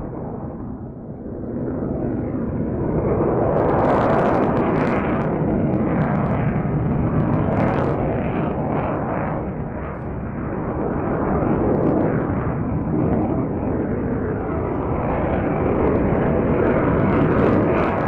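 Jet engine noise of an F-22 Raptor fighter in flight overhead: a loud, rumbling noise that swells about three seconds in, dips briefly midway and builds again, with a crackle at its loudest moments.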